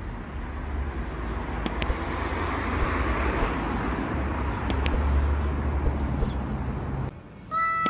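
Steady outdoor street ambience, a low rumble with a hiss over it, like distant road traffic. Near the end it breaks off and a cat's drawn-out yowl begins.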